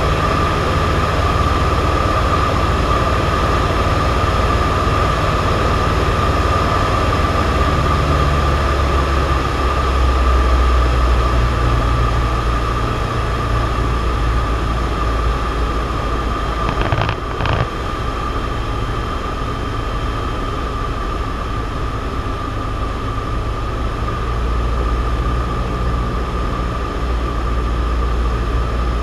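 Cessna 172's piston engine and propeller running steadily in cruise flight, heard from inside the cabin as a low drone with a steady high tone over it. The drone swells slightly about ten seconds in, and a brief click comes a little past halfway.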